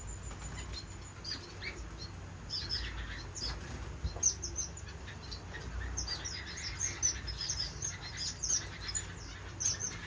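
A room of caged finches chirping: many short, high calls overlapping, coming thicker in the second half.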